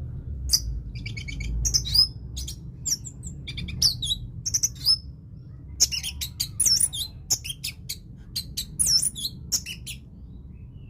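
Orange-headed thrush singing: a rapid, varied string of short high chirps, clicks and sweeping whistles broken by brief pauses.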